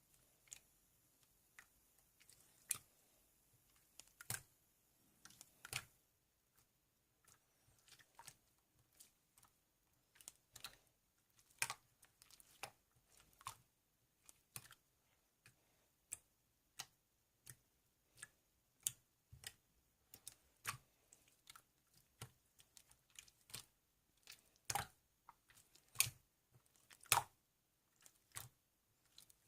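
Faint, irregular clicks and taps, roughly one to three a second, with near silence between them.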